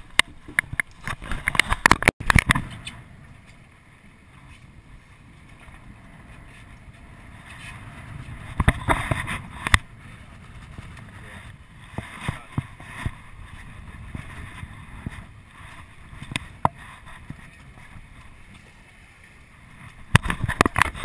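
Choppy sea splashing around a small offshore fishing boat, with a cluster of sharp knocks and clatter in the first couple of seconds and again near the end.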